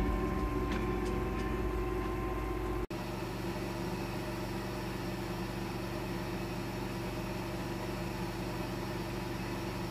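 Quadcopter drone's motors and propellers humming steadily, broken by a brief dropout about three seconds in.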